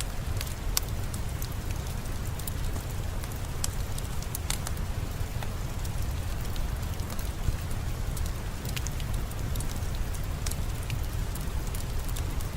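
Steady rain falling, with the irregular sharp crackles and pops of a wood fire over it.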